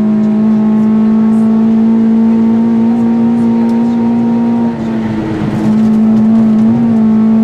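Rally car engine heard from inside the cabin, holding high, nearly steady revs. About five seconds in, as the car takes a bend, the engine note and level dip briefly, then it settles back to a steady high note.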